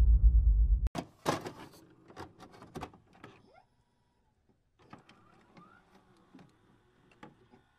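Bass-heavy electronic intro music cuts off abruptly about a second in, followed by a scatter of sharp digital glitch clicks and short electronic blips, densest just after the cut and thinning to a few faint ticks.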